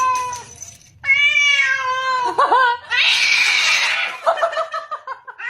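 Cat yowling in long, drawn-out meows, two calls in a row with the pitch sagging, followed about three seconds in by a harsher, noisy sound.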